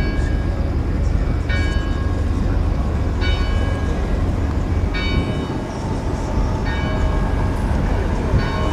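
A ringing tone that sounds for about a second and repeats about every 1.7 seconds, six times, over a steady low rumble.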